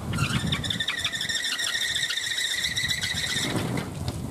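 A kolecer, a wooden wind propeller on a tall bamboo pole, squealing steadily as it spins in the wind. The high squeal pulses rapidly with the turning and stops about three and a half seconds in, over low wind rumble.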